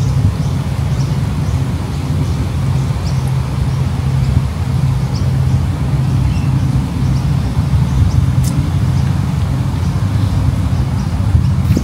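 Steady low rumble of road traffic, with a few faint high chirps over it.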